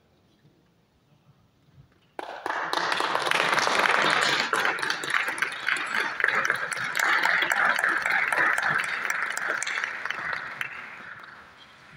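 Audience applauding. The clapping starts suddenly about two seconds in, after a moment of near silence, and fades away near the end.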